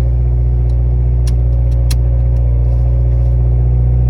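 2016 Subaru WRX's turbocharged 2.0-litre flat-four engine idling steadily while it warms up. A couple of faint, sharp ticks come in about a second and two seconds in.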